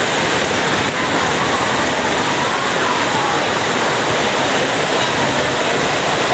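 Heavy rain pouring down, a loud, steady hiss with no breaks.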